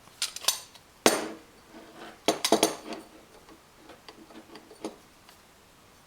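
Hard clinks and knocks of faucet parts being handled and set down, in several quick clusters, the loudest about a second in, then lighter taps.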